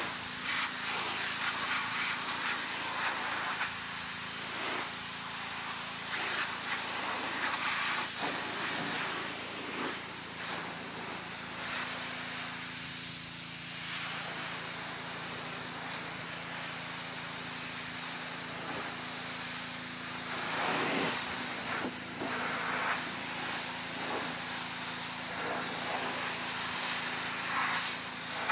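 Pressure washer jet spraying water against the rusty steel body panels of a car, blasting off dirt and rust. It is a steady, loud hiss that shifts a little as the wand moves over the panels, with a steady low hum underneath.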